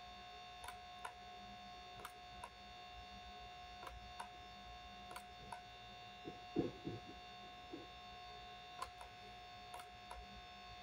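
Computer mouse clicks, faint and sharp, several times and often in pairs a fraction of a second apart, over a steady electrical hum and whine from the recording setup. About two-thirds of the way through comes one brief, louder low sound.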